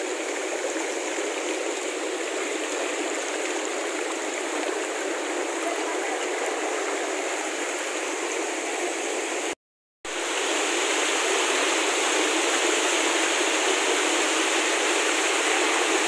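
Steady rush of water falling and running at the Sungai Lepoh waterfall. It drops out completely for a moment about ten seconds in and returns a little louder.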